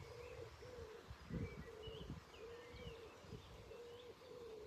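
Birds calling: a run of low cooing notes repeated one after another with short gaps, and faint high chirps from small birds over them.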